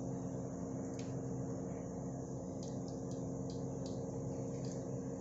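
Moong dal with bottle gourd bubbling in an open pressure cooker pot: a few soft pops of bursting bubbles at irregular moments over a steady low hum.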